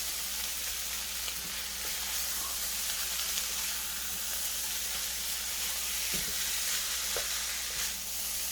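Chicken fried rice sizzling steadily in an oiled pan over high heat, crisping. A few light ticks of a utensil stirring it come partway through.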